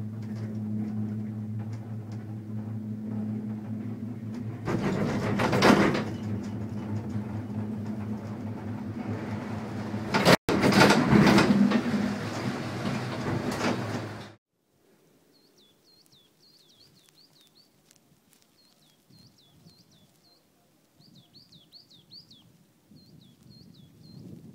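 Poma gondola lift running: a steady low machine hum, with a louder rumbling noise about five seconds in and again from about ten seconds, as cabins pass through the station. It gives way suddenly to quiet about fourteen seconds in, where small birds chirp in short repeated falling notes.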